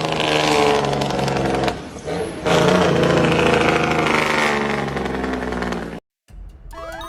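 Loud vehicle engine revving in two bursts, with a short drop about two seconds in. It cuts off abruptly near the end, and music starts.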